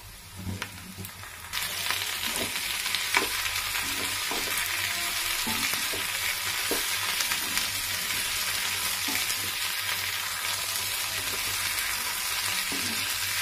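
Onions, tomatoes and whole spices frying in oil in a kadai: a steady sizzle that sets in suddenly about a second and a half in, with the taps and scrapes of a wooden spatula stirring.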